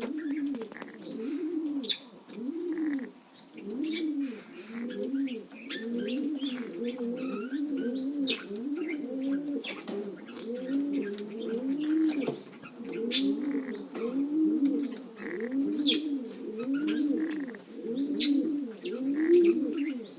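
Domestic pigeons cooing, a run of rising-and-falling coos about one a second, often overlapping, with short high chirps scattered through. The hen's snore-like wheezing from a respiratory problem may be among them, but cannot be picked out from the cooing.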